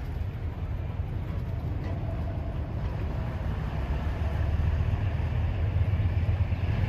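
A steady low rumble that grows louder near the end.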